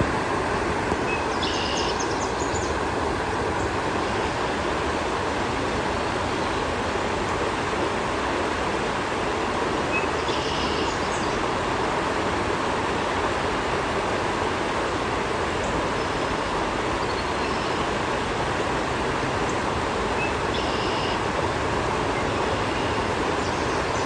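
River rapids rushing steadily over rocks. A small bird gives a short high call three times, about ten seconds apart.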